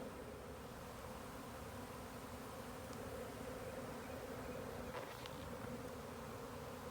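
Honey bee swarm buzzing as many bees fly around the hive box and come in to settle, a steady, even hum.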